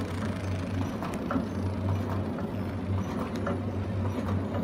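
Automatic biscuit pouch packing machine running: a steady low mechanical hum with light clicking from its moving parts.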